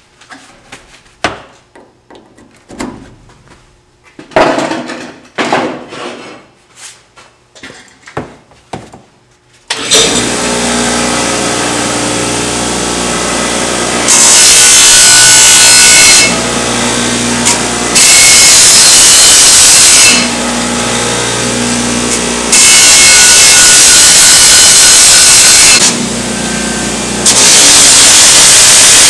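A few clicks and knocks of hands and tools on the grinder. About a third of the way in, a bench grinder switches on and runs with a steady hum. Four times a workpiece is pressed to the spinning wheel, each a loud, harsh grinding of about two to three seconds.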